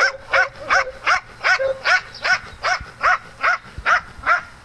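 A dog barking over and over at an even pace, about two and a half barks a second, each bark rising and falling in pitch; the barking stops shortly before the end.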